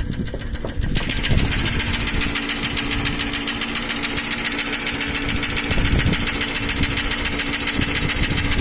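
Nissan Almera N16 petrol engine idling with a rapid, even ticking knock from the top of the engine, which grows louder about a second in. The knock is the sign of intake valves with too little clearance (tight valves).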